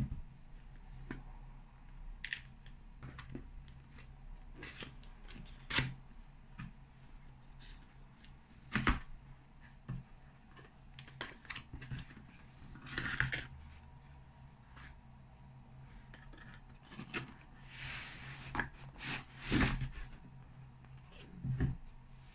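Cardboard packaging being opened and handled: flaps pulled back and the inner box slid out, with scattered clicks and taps and a few short scraping, tearing bursts of cardboard on cardboard.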